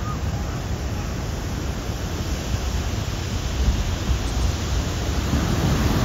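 Large storm waves breaking over and around a pier: a steady, dense rush of surf with a deep low rumble.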